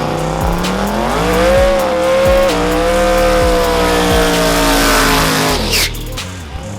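Drag car's engine at full throttle, rising in pitch, then holding with a small drop about two and a half seconds in, as at a gear change, before fading out near the end. A beat runs underneath.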